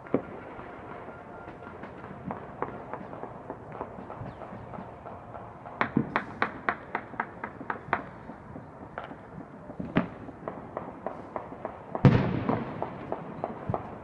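Celebratory gunfire from rifles and handguns mixed with fireworks bangs across the city, the reports echoing off buildings. There is a rapid, even string of about ten shots near the middle, and near the end one louder, deeper boom with a long rolling echo.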